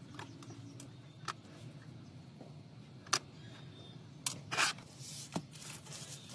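Sharp clicks and a short scrape of small hand tools on phone parts, over a low steady hum. The clicks are scattered, about five of them, with the scrape a little past halfway.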